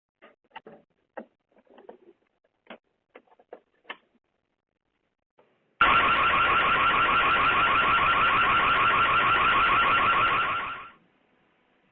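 A loud electronic alarm siren with a rapid warble starts suddenly about six seconds in, sounds steadily for about five seconds, then stops. Before it come a few faint scattered clicks.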